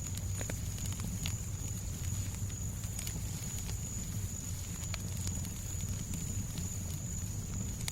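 Crackling fireplace mixed with white noise: scattered sharp crackles and pops over a steady low rumble, with a thin steady high-pitched tone.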